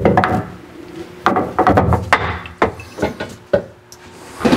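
Steel machine vise being set down and shifted on a CNC mill's T-slot table: an irregular run of metal clunks and short scrapes, the loudest right at the start.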